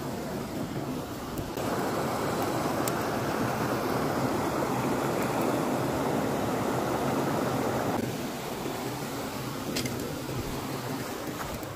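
Steady rushing of creek water. It gets suddenly louder about a second and a half in and drops back abruptly near the end.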